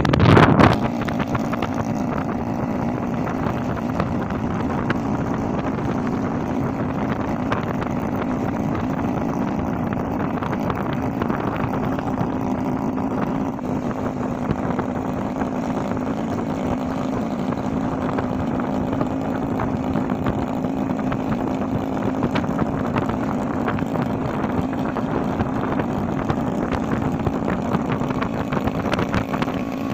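Small motorcycle engine running steadily at cruising speed with a constant hum, over the rush of road and wind noise. A short louder rush comes right at the start.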